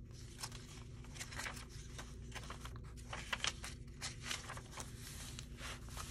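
Paper rustling and crinkling as a handmade, freshly bound junk journal is handled, with a string of irregular short scrapes and taps from the pages, over a steady low hum.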